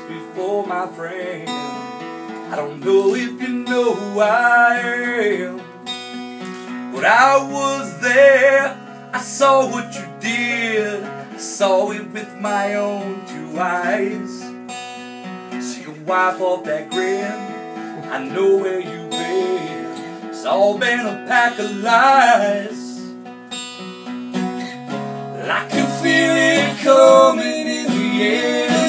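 Acoustic guitar strummed live, with a man singing the melody in phrases over it; between the sung lines the guitar carries on alone.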